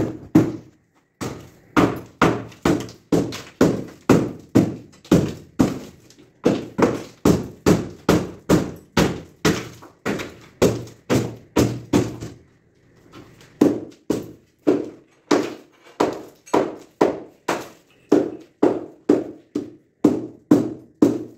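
Hammer blows on masonry, struck steadily at about two to three a second, each a sharp thunk with a short ring, with a brief break about halfway through.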